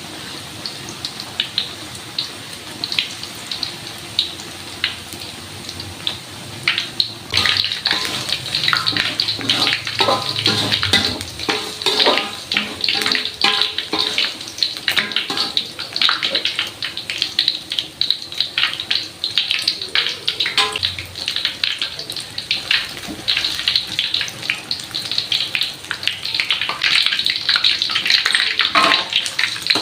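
Food frying in hot oil: a steady sizzle with dense, irregular crackling pops that grows louder and busier about seven seconds in.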